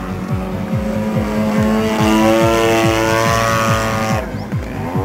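Radio-controlled model airplane's engine running in flight with a steady whine, growing louder through the middle and then fading near the end as its pitch bends.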